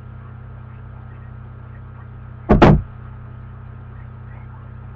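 A brief loud double thump about two and a half seconds in, over a steady low electrical hum.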